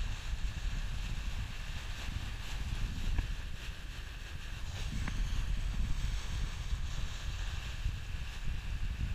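Wind buffeting the camera microphone on a yacht under way: a steady low rumble that swells and fades, with a faint hiss above it.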